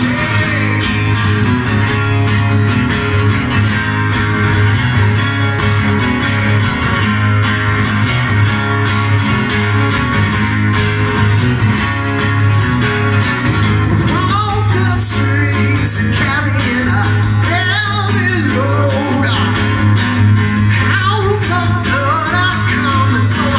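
Live rock song played on two guitars, with a strong steady low note underneath; a male lead vocal comes in a little past the middle.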